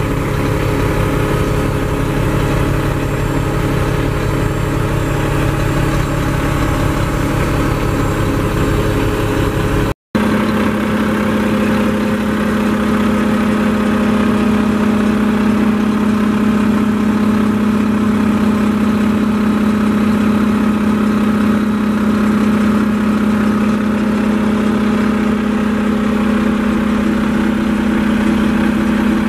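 Mack MP7 inline-six diesel in a 2013 Mack side-loader garbage truck, idling steadily. It cuts out for a moment about ten seconds in, and after that a steady low hum stands out more strongly.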